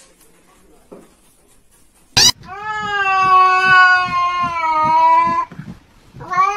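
Cat yowling: one long, steady, drawn-out call lasting about three seconds, then a second call starting near the end. A sharp click comes just before the first call.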